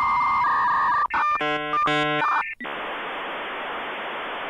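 Electronic tones and static: a steady high beep that drops to a lower tone, a burst of chord-like beeps about a second in, then a steady hiss.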